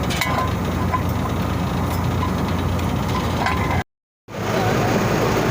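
Steady low machinery hum with a few light metal clinks. It cuts out for about half a second a little before four seconds in, then comes back.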